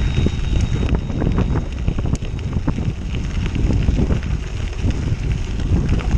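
Wind rushing over a handlebar-mounted action camera's microphone while a bicycle rolls along a gravel road, with scattered small clicks and rattles from the tyres crunching over gravel.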